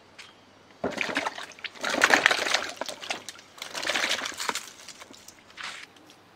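Ripe tomatoes tumbling from a plastic basket into a basin of water, splashing in three or four bursts, the loudest about two seconds in.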